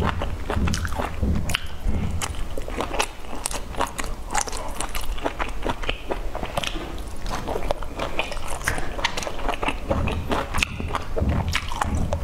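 A person chewing pan-fried dumplings, with many short, irregular wet mouth clicks.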